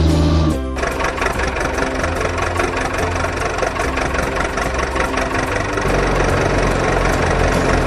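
A heavy vehicle's engine idling, a fast even chugging, after the music cuts off about half a second in.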